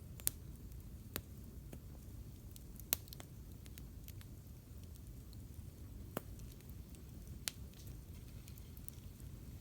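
Wood campfire crackling: scattered sharp pops every second or so over a low steady rumble, the loudest pops near the start and about three seconds in.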